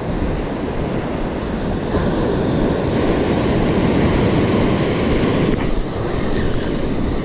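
Surf washing on a sandy beach with wind buffeting the microphone: a steady rushing noise with no distinct strokes.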